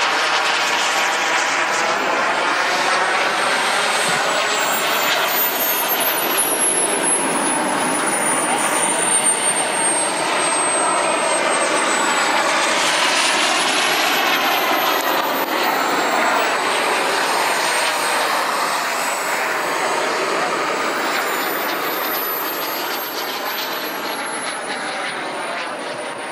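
Model jet turbine engine (Jets Munt Merlin M90) of a scale F-16 running: a loud rushing jet noise with a thin high whine that drops, climbs again about halfway through and then sinks, fading near the end.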